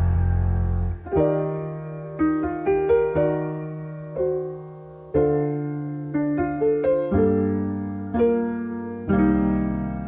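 Recorded backing music: the full band stops about a second in, leaving a piano playing slow single notes and chords that ring and fade, the closing piano outro of the song.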